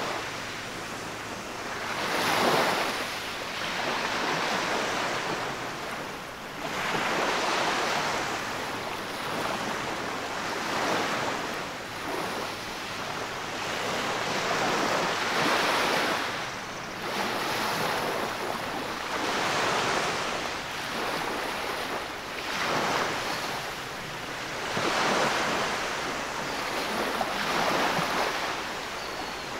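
Small waves washing up a sand beach and drawing back, the surf swelling and fading about every four to five seconds.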